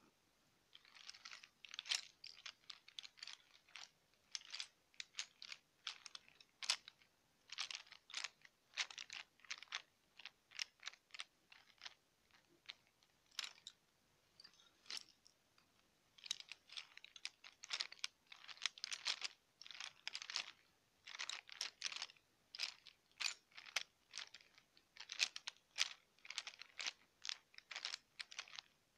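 Fingernails scratching and tapping on a fabric pencil case, in quick, irregular crackly strokes, thinning out for a few seconds about halfway through.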